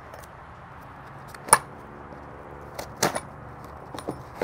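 Cardboard shipping box being handled and opened by hand: a few sharp knocks and scrapes of the cardboard, the loudest about a second and a half in, more near the end.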